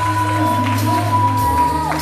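Slow dance music with one long held high note that drops away near the end, over a steady bass line.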